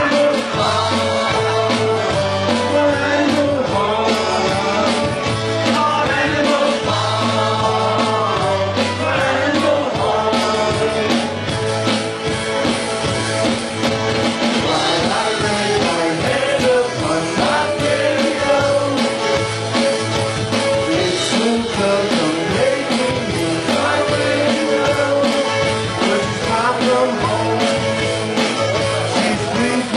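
Live rock band playing: a man sings the lead over guitar and a drum kit, with cymbals ringing through.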